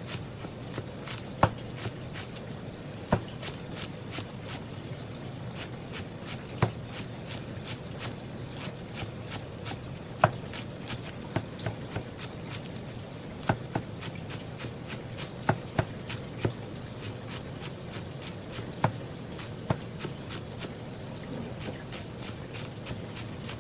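A kitchen knife knocking on a cutting board: sharp knocks and clicks at irregular intervals, a dozen or so of them louder, over a steady low hum.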